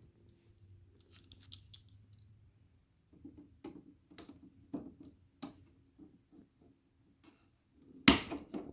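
Scattered light clicks and metallic taps from handling the battery cells and cutter, with one louder knock about eight seconds in.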